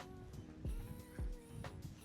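Background music: held notes that step to a new pitch every second or so, over a soft beat of low thumps.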